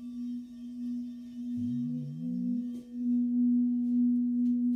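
A 24-karat-gold-and-quartz crystal singing bowl being sung with a mallet rubbed round its rim: one steady, low ringing tone that swells louder about three seconds in.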